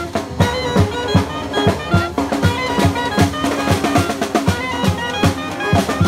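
Street brass band playing a tune, with soprano saxophone, trumpets and saxophones over a steady drum beat of about two and a half beats a second.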